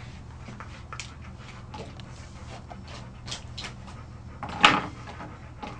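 Faint rustling and small clicks of hands working through a wiry dog coat on a grooming table, over a steady low hum. One short, sharp noise stands out about three-quarters of the way through.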